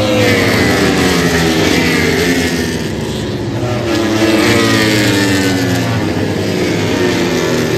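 Several MotoGP four-cylinder race bikes at high revs going past on the track, their engine notes falling in pitch one after another as they go by.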